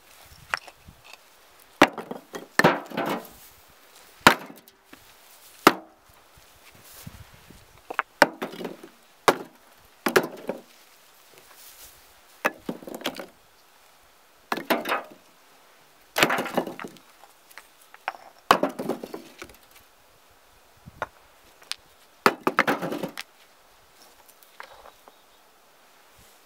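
Old bricks thrown one after another into a wheelbarrow: a sharp knock as each lands, often followed by a short clatter as it settles against the others. There are about a dozen landings, one to three seconds apart.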